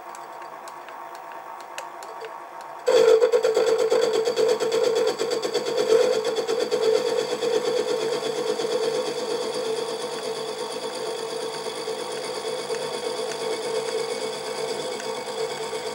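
Sieg SX2P mini mill running at about 500 rpm, then about three seconds in its 16 mm end mill bites into the pedestal casting and cuts steadily. The cut is loud, a dense rapid ticking with a steady mid-pitched tone, easing off slightly as it goes on.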